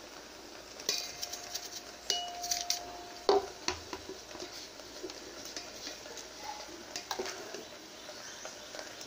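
Metal kitchen utensils clinking and knocking against a metal pot of flour, with a clear ringing note through the first few seconds and the loudest knock just after three seconds, then scattered lighter clinks.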